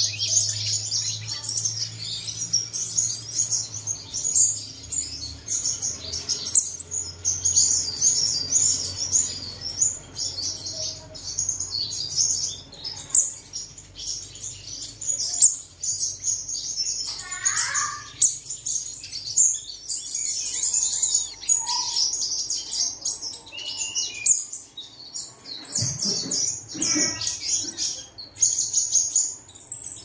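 Sunbird singing: a rapid, high-pitched twittering song of chirps that runs almost without a break, with a lower falling call about two-thirds through.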